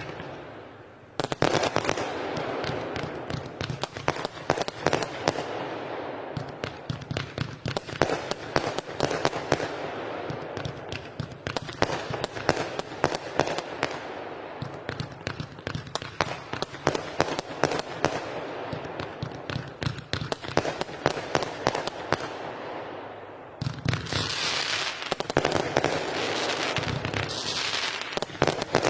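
Weco 'Time Machine' fireworks battery firing: a rapid, continuous series of launch thumps and crackling bursts, with a brief lull about a second in and another shortly before the end.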